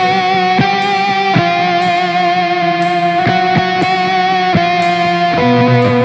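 Instrumental rock music led by electric guitar: long held lead notes with a slight vibrato over backing instruments, with a hit about once a second.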